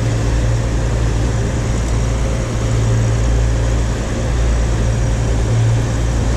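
Motor cruiser under way: the steady low drone of its engines under a constant rush of wind and water.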